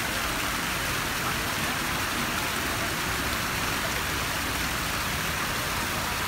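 A steady, even rushing noise with no distinct events, strongest in the upper-middle range.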